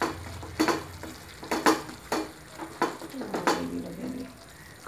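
Wooden spatula stirring chicken pieces in a non-stick frying pan in irregular scraping strokes, over a low sizzle of the chicken frying.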